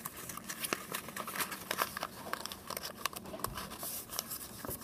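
Folded origami paper crinkling and rustling as hands press two paper masu boxes together, fitting one into the other: a string of small, irregular crackles and scrapes.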